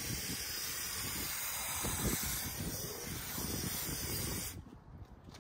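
Two-component spray foam adhesive gun hissing steadily as it dispenses foam onto the roof; the hiss cuts off suddenly about four and a half seconds in.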